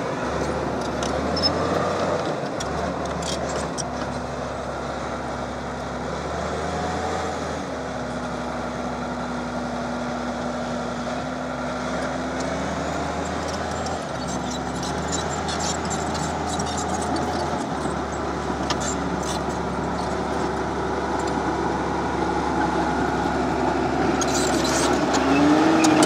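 Crawler bulldozer's diesel engine running under load, its pitch drifting up and down as it works, with the metal tracks clanking. It gets louder and revs up near the end.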